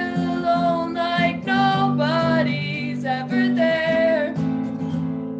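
A young woman singing a gentle song in held, sung phrases while strumming an acoustic guitar.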